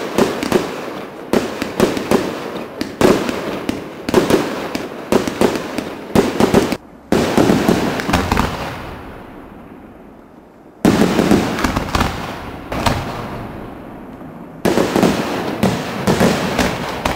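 Fireworks display: shells bursting in rapid clusters of sharp bangs and pops, fading away between clusters before the next volley starts again suddenly.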